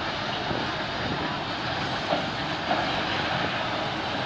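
Canadian Pacific freight train's cars rolling past on the track, a steady noise of wheels on rail, with wind buffeting the microphone.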